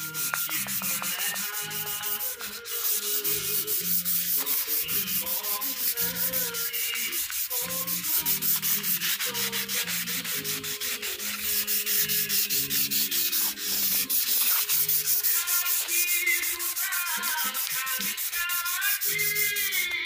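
Fine 320-grit sandpaper rubbed by hand back and forth over a flat hardwood panel, smoothing the wood surface. It is a quick, even scratching of several strokes a second.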